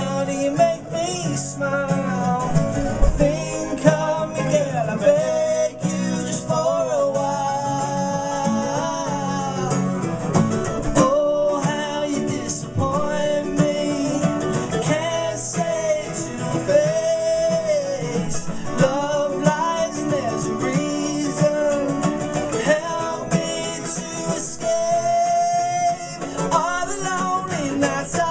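Live acoustic folk music: a nylon-string classical guitar and a steel-string acoustic guitar strummed and picked together, with male vocals singing over them.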